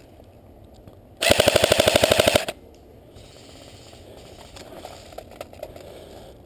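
Airsoft rifle firing one full-auto burst lasting about a second, a rapid even stream of about fifteen shots a second, about a second in.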